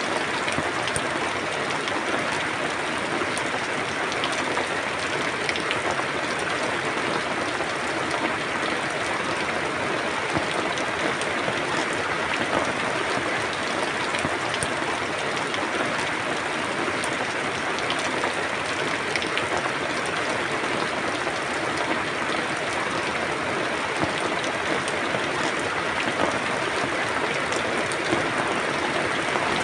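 Steady rain falling, an even patter with scattered individual drop ticks.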